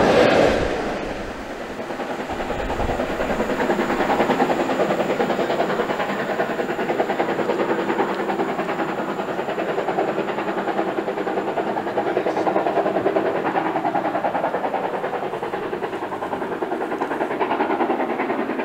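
A steam-hauled passenger train running past on the rails. The last vehicle rushes by loudly at the start, and the sound drops within a second or two. After that the train's running noise carries on steadily as it draws away up the line.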